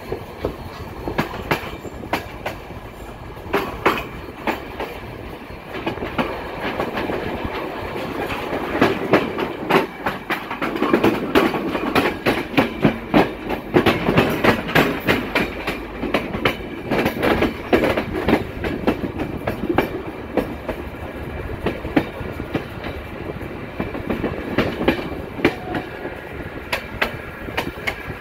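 Passenger train coaches rolling along, wheels clacking over rail joints with a steady rumble, heard from an open window of the moving train. The clacks come thick and loud through the middle stretch, then thin out again.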